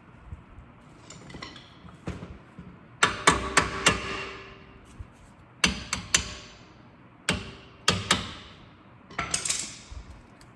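A series of sharp metal-on-metal knocks and clanks, like hammer blows or heavy tools striking steel suspension parts, coming in four or five quick clusters. Several of the louder strikes ring briefly.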